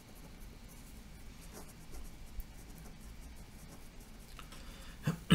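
A uni-ball Onyx rollerball pen writing capital letters on a sheet of paper: faint scratching strokes. A brief voice sound comes near the end.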